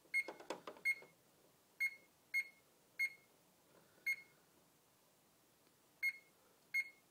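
Gent Xenex fire alarm control panel giving eight short, high key-press beeps at uneven intervals as its buttons are pressed.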